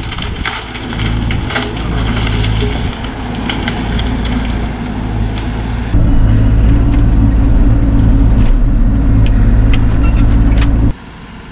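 Bobcat E42 mini excavator's diesel engine running under load, with sharp cracks and snaps of dead wood breaking in the first half. About six seconds in the engine sound steps up abruptly louder, then falls away suddenly near the end.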